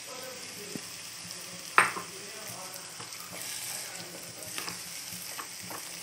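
Onion-tomato masala sizzling steadily in a frying pan as mashed bottle gourd is added and stirred in with a wooden spatula. There is a sharp knock about two seconds in, and lighter taps and scrapes of the spatula against the pan follow.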